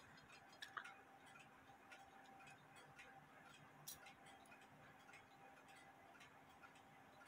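Near silence broken by faint, scattered ticks from a Hubert Herr cuckoo quail clock movement as its wheels and levers are worked by hand, roughly one click a second at uneven spacing.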